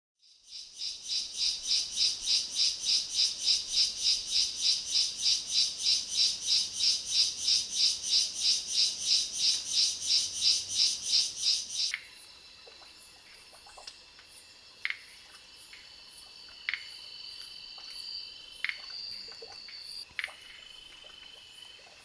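Night forest insects: a loud, rhythmic pulsing insect call at about three pulses a second, which cuts off abruptly about halfway through. After that come quieter steady high insect trills with short sharp chirps every second or two.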